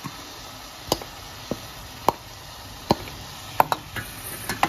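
Wooden spoon knocking against a steel bowl and a saucepan as minced garlic is scraped into a pan of ground beef and onion and stirred in: a string of sharp, irregular knocks, one or two a second.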